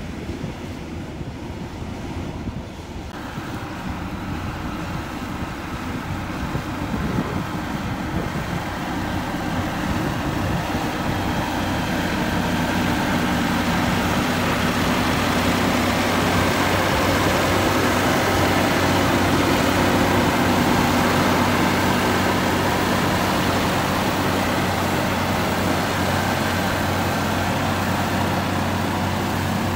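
Heavy diesel machinery running steadily: first a motor grader, then a single smooth-drum road roller whose engine drones, growing louder over the first dozen seconds as it comes closer.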